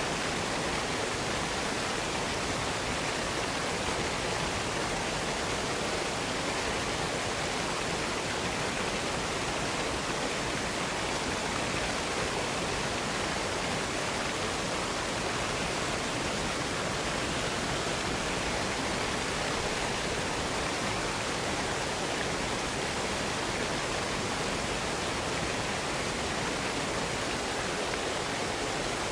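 Waterfall: falling water rushing steadily, an even, unchanging hiss.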